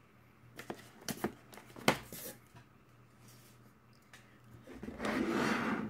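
Graphics card packaging being handled: a few light taps and clicks of cardboard in the first two seconds, then a rustle of packaging lasting about a second near the end.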